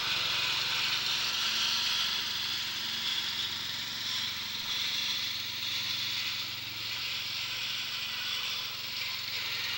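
Riding mower's 14 hp Briggs & Stratton engine running steadily.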